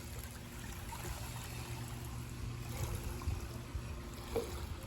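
Water running and trickling steadily, with a low steady hum underneath and a few faint knocks.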